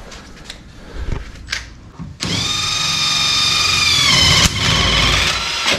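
Cordless impact wrench running on a 17 mm rear suspension bolt, starting about two seconds in and running steadily for about three and a half seconds; its pitch drops partway through, and there is a sharp click near the end.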